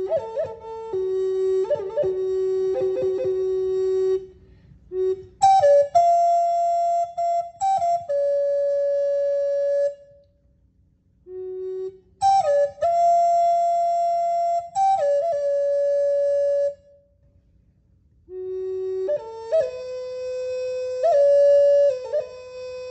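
Wooden end-blown shamanic flute playing a slow melody of long held notes, each phrase broken by quick grace-note flicks between pitches. The phrases are separated by short pauses of one to two seconds.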